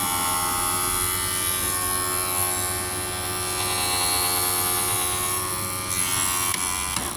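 Eyeglass lens grooving machine running steadily, its small electric motor whining as it cuts the groove into the edge of a lens; it cuts off just before the end.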